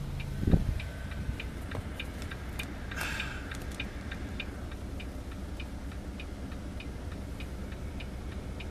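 Steady quick ticking of a semi truck's turn-signal flasher over the low, even rumble of its diesel engine idling, heard inside the cab. A single thump about half a second in is the loudest sound, and there is a brief hiss about three seconds in.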